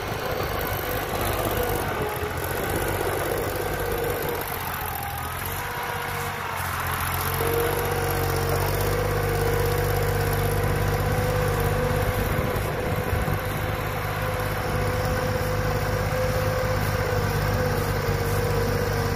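Small diesel farm tractor engine running hard under load while pulling a heavily loaded trailer through soft, muddy field ground: a steady drone with a held whining note, growing a little stronger about seven or eight seconds in.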